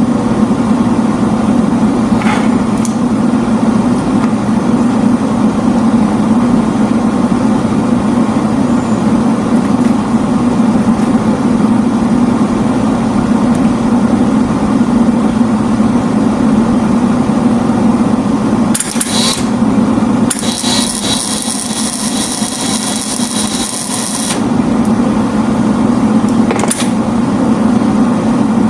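Metal being tack-welded: a few short crackling bursts from the welding arc and one longer weld of about four seconds past the middle, over a steady machine hum.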